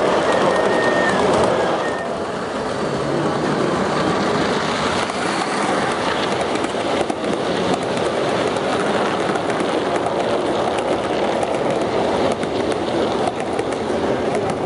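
7mm-gauge model train, a long rake of coaches, running past close by: a steady rushing rumble of wheels on the rails with light clicking.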